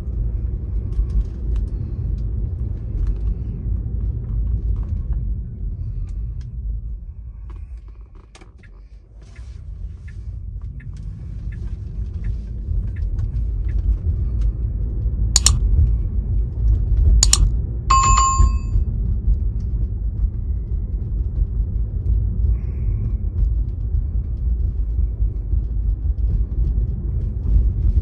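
Car driving with a steady low road and engine rumble. The rumble dies down as the car slows about a quarter of the way in, then builds again as it picks up speed. About halfway through come two sharp clicks, then a short bell-like ding.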